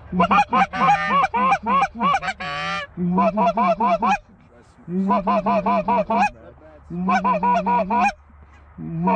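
Goose honking in quick runs of calls. A fast series ending in a rolling trill comes first, then four bursts of rapid honks, each about a second long, about two seconds apart.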